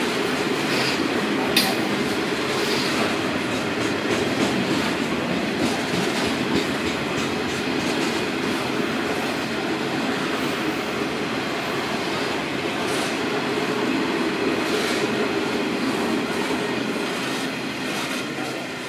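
Freight train's coal hopper wagons rolling past close by: a steady rumble of steel wheels on rails with occasional sharp clicks, fading out near the end.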